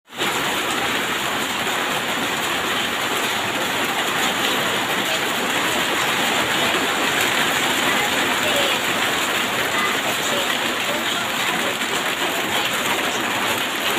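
Steady rain falling, an even hiss that goes on without a break.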